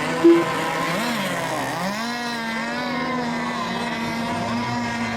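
Several radio-controlled racing boats' motors running together, their pitches rising and falling as the boats circle on the water. A short, loud beep sounds about a third of a second in.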